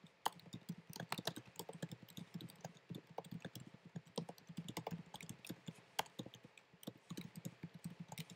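Typing on a computer keyboard: a quick, uneven run of key clicks as a sentence is typed.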